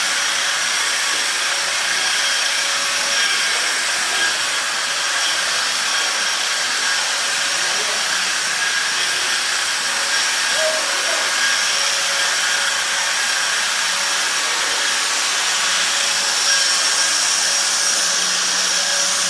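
Electric wall sander running steadily: an even hiss with a constant high motor whine, no pauses or changes in speed.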